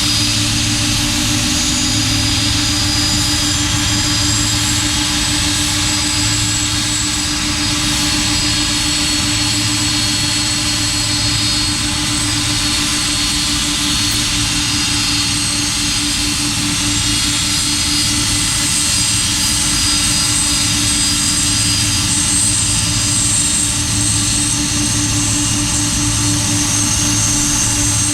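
Boeing 747-400's four turbofan jet engines running steadily, a constant hum under a high-pitched whine.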